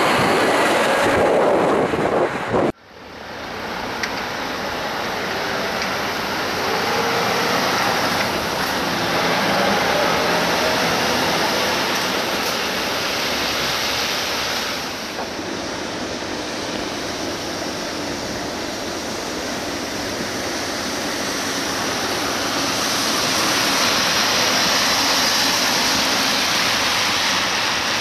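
Scania V8 diesel truck driving, its engine mixed with rushing wind and road noise. The sound cuts off abruptly about three seconds in, fades back up, then swells and eases.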